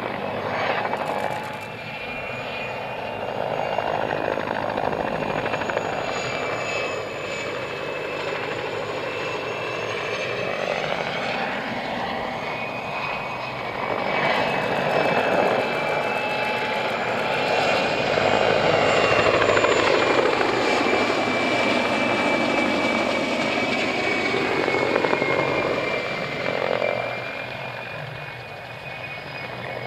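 Mi-2 helicopter flying low and manoeuvring, its twin turboshaft engines giving a steady high whine over the rush of the rotor. It grows louder through the middle as it passes close and fades near the end as it flies away.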